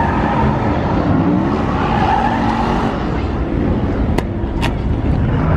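A car doing donuts: the engine revs high and wavers while the tyres squeal and spin on the asphalt. Two sharp cracks come about four seconds in.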